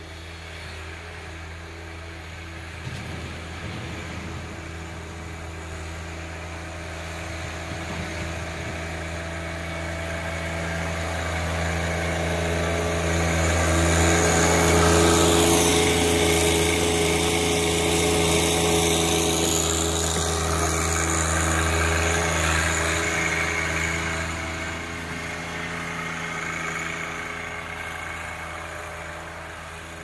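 John Deere 1025R compact tractor's three-cylinder diesel engine running steadily under load while plowing snow. It grows louder as the tractor comes up close about halfway through, then fades as it moves away.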